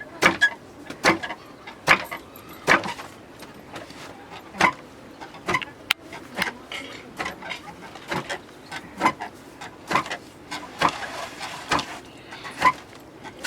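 Barley being milled by hand with a traditional village tool: a steady rhythm of sharp knocks, about one a second.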